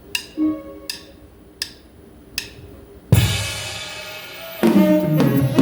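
Drumsticks clicked together four times in an even count-in, then the band comes in together on a loud downbeat, with the drum kit, bass drum and pitched instruments playing.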